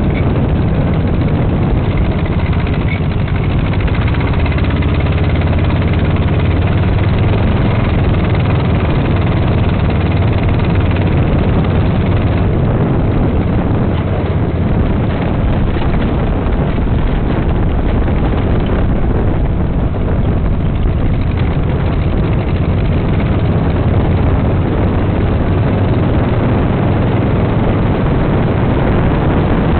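Dune buggy engine running steadily as the buggy drives over beach sand: a constant low drone under an even rushing noise.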